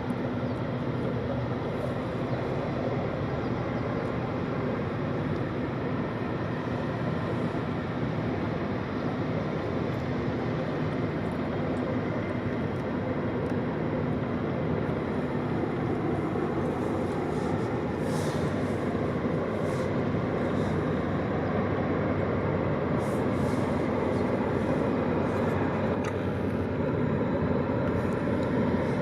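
Tugboat's diesel engines running with a steady low drone and hum, growing slightly louder near the end.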